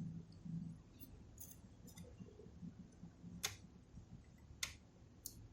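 Small metal tools clicking and tapping against a console's board during soldering work: a few faint ticks, then three sharp clicks about a second apart in the second half.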